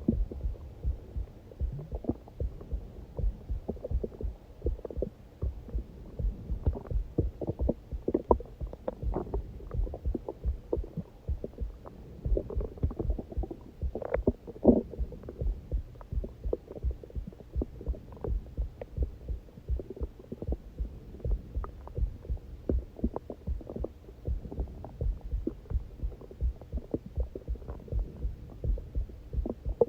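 A person's heartbeat beating steadily as a run of short low thumps. Over it the stomach growls from hunger in irregular gurgles, loudest about fourteen seconds in.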